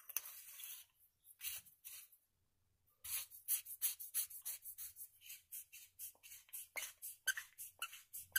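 Threaded body of a cheap LED flashlight being screwed together by hand, its dry threads scraping in a rapid series of short strokes, about four a second. The threads are ungreased: a dash of silicone grease may make that better.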